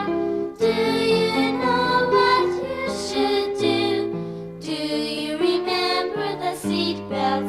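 Gentle children's song music: instrumental accompaniment with held, steadily changing notes, between sung lines.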